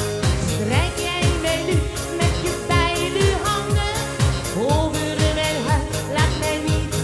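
A woman singing a schlager song into a microphone over pop music with a steady beat of about two kick-drum thuds a second.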